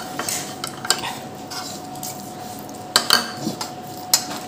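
Metal forks and spoons clinking and scraping against ceramic bowls as noodles are eaten, with a few sharp clinks, the loudest about three seconds in and again about a second later.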